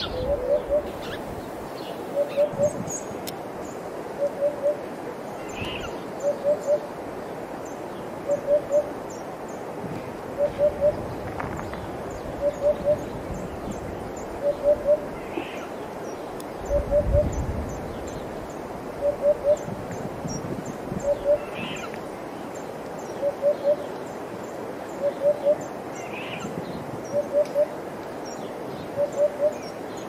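Eurasian hoopoe singing its soft three-note hoop-hoop-hoop, the phrase repeated about every two seconds. A few faint higher chirps come in now and then, and there is a brief low rumble about seventeen seconds in.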